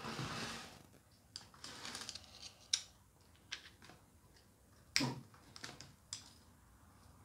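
Small metallic clicks and snips of side cutters working the tabbed piston-pin circlips of a two-stroke engine piston: a handful of sharp ticks, the loudest about five seconds in, after a brief rustle at the start.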